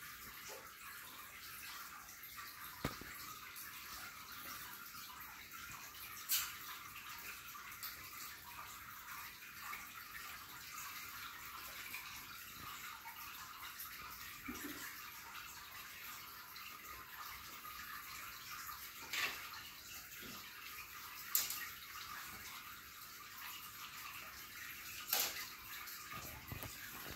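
Steady hiss with a handful of sharp light clicks and knocks scattered through it, from kittens batting and stepping among plastic toy bricks on a tiled floor.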